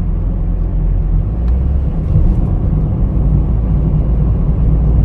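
Steady low rumble of a car on the move, as heard inside the cabin: road and engine noise.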